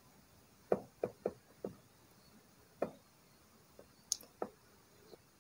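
A plastic doll and toy furniture being handled, giving about eight light, irregular knocks and taps. The loudest tap comes near the start.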